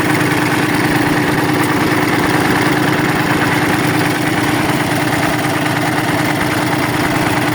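A freshly overhauled engine running steadily at idle, an even, rapid firing beat under a constant tone.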